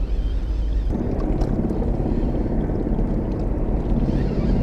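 Wind buffeting the action camera's microphone: a rough, low rumble that grows stronger about a second in.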